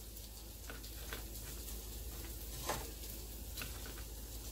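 A few faint clicks of metal kitchen tongs against a plate and food as it is arranged, the loudest about two and a half seconds in, over a low steady hiss.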